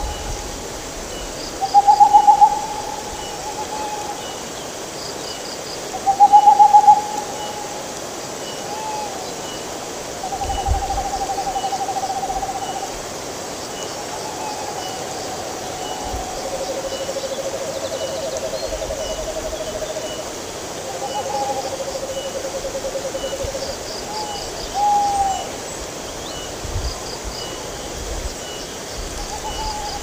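Owl hooting over and over, the loudest hoots in the first seven seconds, then several long trilled notes, some at a lower pitch, and short rising-and-falling hoots. Behind it the steady rush of a shallow river running over rocks.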